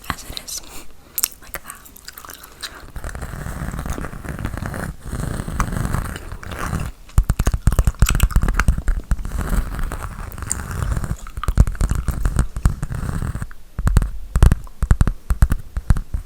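Gum being chewed close to the microphone: a run of wet clicks and crackles that gets louder and denser about halfway through.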